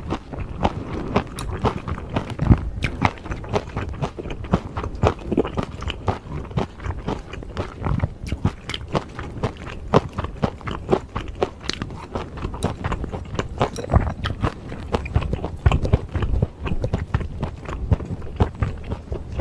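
Close-miked chewing of beef bulgogi with soybean sprouts and glass noodles: wet mouth sounds with many quick crunches and clicks throughout.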